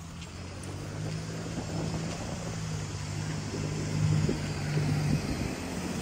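An engine running with a low, steady hum that grows louder over the first few seconds.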